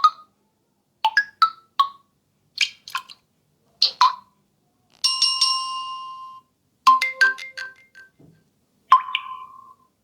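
Infinix Zero Ultra smartphone ringtone sounds: a series of short electronic chime and bell-like melodic tones, each ending in silence. About five seconds in comes a longer ringing tone, then a quick run of notes.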